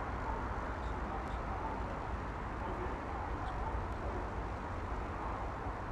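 Steady distant traffic noise: a low, even rumble with no single event standing out, and a few faint high chirps.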